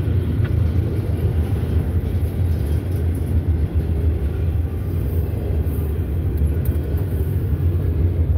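Double-stack intermodal well cars of a freight train rolling past: a steady, loud low rumble of wheels on rail.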